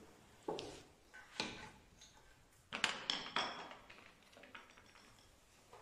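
Metal hand tools knocking and clinking against the bike and the hard floor: a few separate sharp knocks, then a cluster of clinks about three seconds in, some with a short metallic ring.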